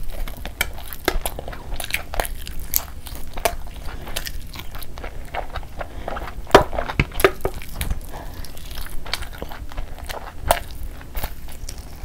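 Close-miked eating: biting and chewing meat off the bone, with wet mouth clicks and smacks at an irregular pace. One sharper, louder click about six and a half seconds in.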